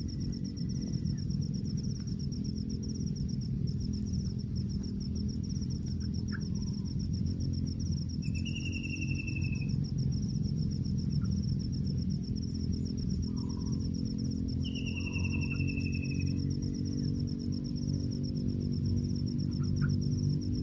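A steady, fast-pulsing insect trill, like a cricket's, with two long falling whistles from a bird, one about eight seconds in and one about fifteen seconds in. Beneath them is a louder low background of soft music.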